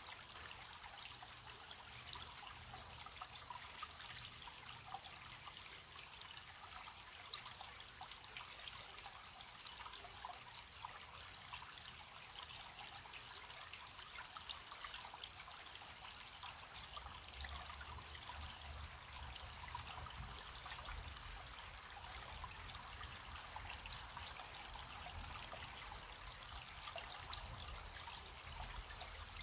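A gentle stream trickling steadily, with crickets chirping in a faint, even high-pitched pulse behind it.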